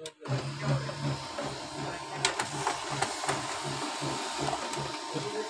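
HP LaserJet Professional P1606dn laser printer running as it prints a test page: a steady mechanical whir with a low hum pulsing about three times a second, and a few sharp clicks a little over two seconds in.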